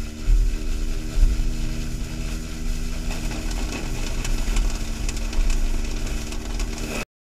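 Battery-powered Victory Sweepers E600 tow-behind sweeper running while towed over asphalt, its brushes scrubbing the pavement over a steady motor hum, with gusts of wind rumbling on the microphone. The sound cuts off abruptly near the end.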